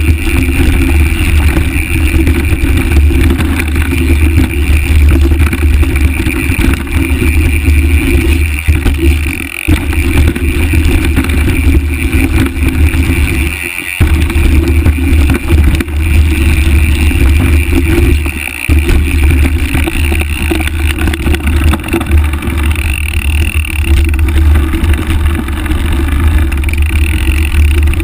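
Loud, continuous low rumble of wind buffeting a handlebar-mounted microphone and knobby tyres rolling fast over a dirt trail during a mountain-bike descent, broken by three brief dips.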